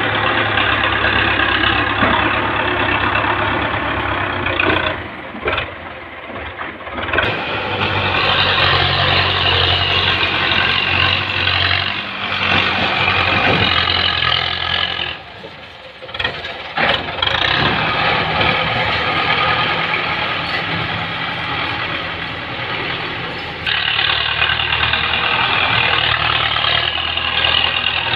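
Farm tractor's diesel engine working under load as its front blade pushes through loose mud-brick rubble. The engine eases off twice, about five and fifteen seconds in, then pulls hard again.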